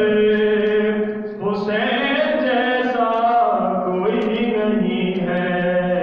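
A voice chanting a slow melody in long, held notes that glide from one pitch to the next.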